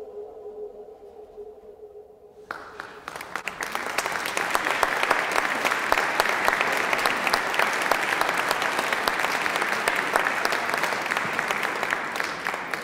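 Applause, many hands clapping. It starts suddenly about two and a half seconds in, after a faint held note fades, swells to a steady level and thins near the end, marking the end of the first act.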